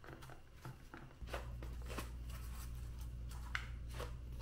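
Faint handling noise: hands squeezing and shifting a heat-formed plastic holster insert, with a few soft clicks and rustles. A low steady hum comes in about a second in.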